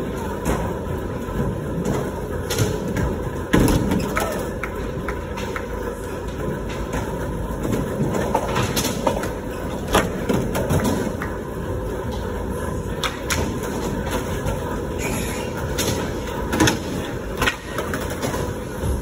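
Skateboard wheels rolling over concrete and plywood ramps in a steady rumble, with several sharp clacks of the board popping and landing.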